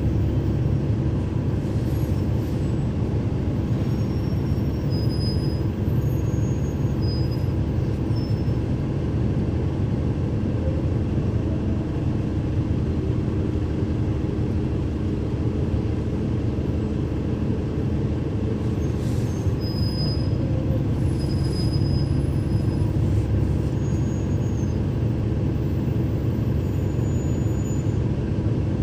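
2012 NABI 40-foot transit bus's Cummins ISL9 diesel engine running steadily, heard from inside the passenger cabin with the HVAC off.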